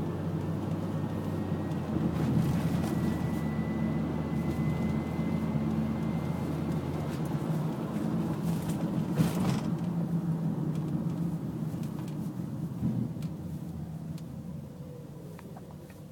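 2002 Honda Odyssey minivan's V6 and road noise heard from inside the cabin while driving: a steady low hum with a faint high whine that rises slightly in the first half. The sound fades over the last few seconds as the van slows.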